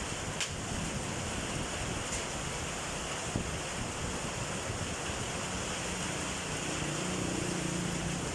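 Heavy rain mixed with hail pouring down in a steady hiss, with a few sharp ticks of hailstones striking.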